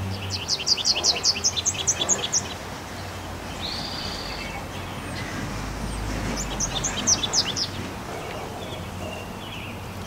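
Small songbirds calling: a rapid trill of sharp, high, evenly repeated notes lasting about two seconds near the start, a short high whistled note about four seconds in, and a second similar trill about six seconds in.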